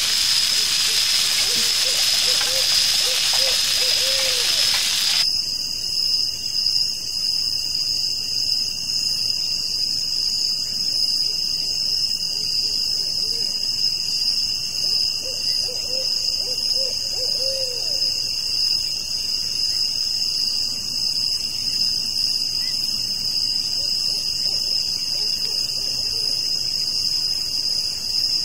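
Sausages and red peppers sizzling on a ridged grill pan, cut off abruptly about five seconds in. Under it and then alone, night insects keep up a steady chorus of several high, shrill tones. A faint wavering call comes twice, once early and once past the middle.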